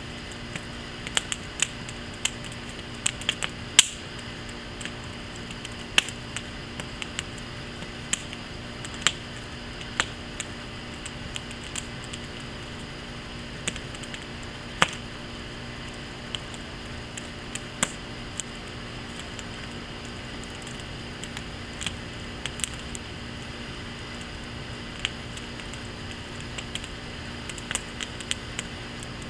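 Wood fire in a firepit crackling, with irregular sharp pops and snaps, several close together at times, the loudest about four seconds in.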